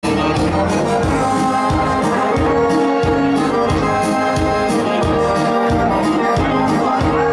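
Live Serbian/Montenegrin folk (narodna) dance music: a keyboard plays a held, brass-like melody over a steady beat.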